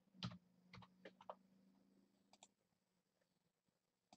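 Faint, scattered clicking at a computer while the randomizer is set up: a handful of clicks in the first second and a half, two together about two and a half seconds in, and one more near the end, over a faint low hum that fades about halfway.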